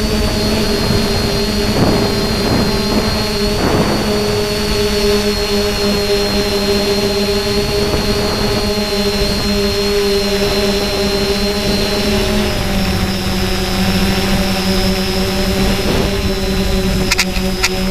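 Quadcopter's electric motors and propellers droning steadily in flight, heard from the camera mounted on the craft, over a rushing-air rumble. The drone's pitch drops slightly about twelve seconds in.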